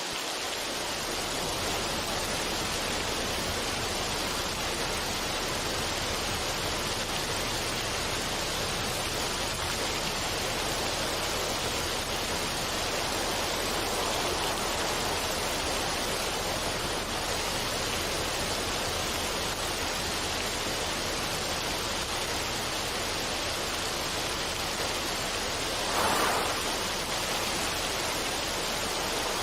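Running water: a steady, even rush with no rhythm, swelling briefly louder once near the end.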